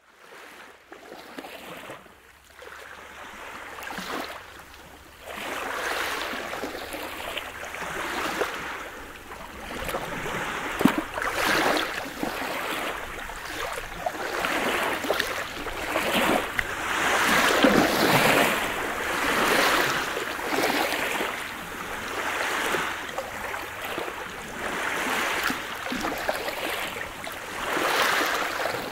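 Small sea waves breaking and washing over a pebble beach, the wash swelling and easing every two seconds or so, starting quieter and filling out after about five seconds.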